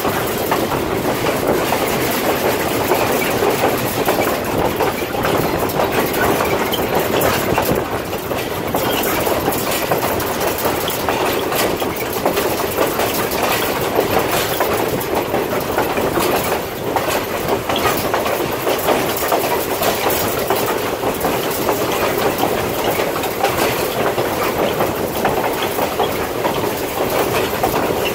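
Passenger railcar rolling along the track, heard from on board: a steady rumble of wheels on rail with dense clicking and clacking.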